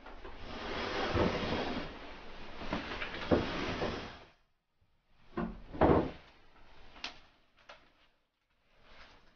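A wooden sliding door rubbing along its track for about four seconds, then two sharp knocks about half a second apart, a couple of small clicks, and more sliding near the end.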